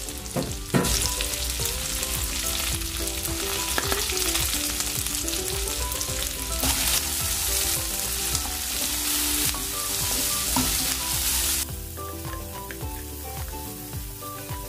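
Chicken, onion and garlic sizzling in hot oil in a frying pan as they are stir-fried until the garlic turns golden, with the light knocks and scrapes of a utensil stirring. The sizzle gets louder about a second in and drops away abruptly near the end.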